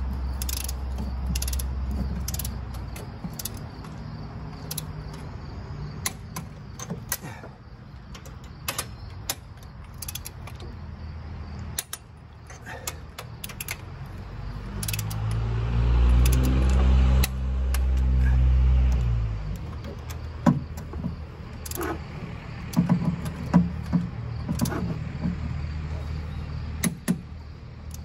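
Long torque wrench ratcheting and clicking on the cylinder head bolts of a Jeep 4.0 inline-six as they are tightened in sequence, with scattered sharp metallic clicks. A low rumble swells for a few seconds midway.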